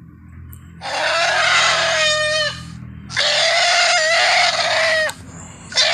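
Woolly mammoth sound effect: three loud elephant-like trumpet calls, each a harsh blare with a steady pitch lasting one to two seconds. The pitch bends down at the end of the first two calls, and the third starts near the end.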